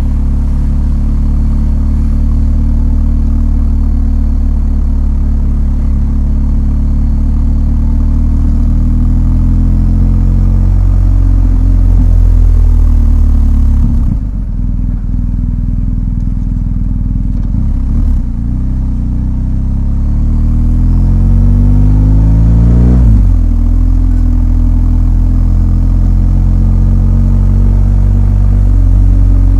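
BMW R1250 GS boxer-twin engine running on the road. The note falls away as the rider eases off, dips around the middle with the throttle closed, then climbs under acceleration and drops suddenly at a gear change about two-thirds of the way through before pulling steadily.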